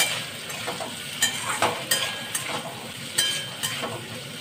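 Metal spatula stirring diced potatoes in a metal kadhai, scraping and clinking against the pan at irregular moments over a steady sizzle of hot oil.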